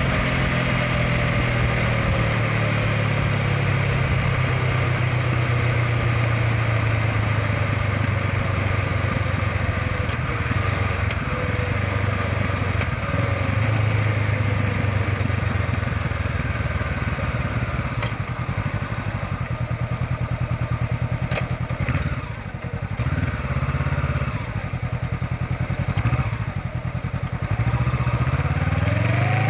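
Honda CBR500R's parallel-twin engine running on the road over steady road noise, its pitch falling slowly for the first dozen seconds as the bike rolls off. In the back half it drops lower and eases on and off in slowing traffic, then revs up again near the end as the bike accelerates.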